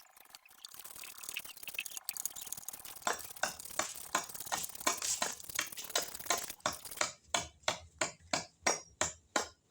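Rhythmic sharp tapping strikes, about three a second, starting about three seconds in and growing louder toward the end.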